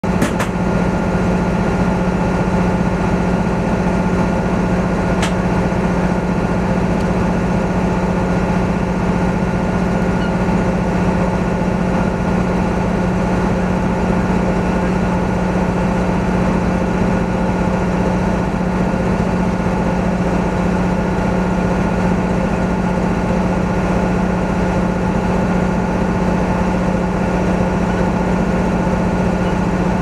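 An engine idling: a steady, even hum that holds one low pitch throughout, with a click right at the start.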